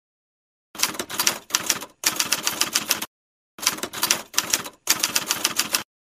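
Typewriter sound effect: rapid key clacking in two runs of about two seconds each, half a second apart, starting and stopping abruptly.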